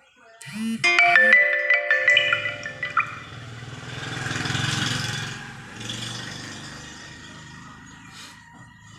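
A short melody of bright, ringing marimba-like notes begins about half a second in and dies away by about three seconds. A low steady hum follows, with a swell of hiss around the middle.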